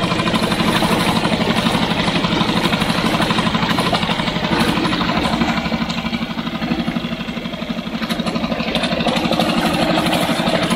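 Hangkai 6.5 hp four-stroke outboard motor running at low throttle in forward gear during its break-in, with a steady rapid firing beat and its propeller churning the water in a test barrel. The running dips slightly a little past halfway, then picks back up.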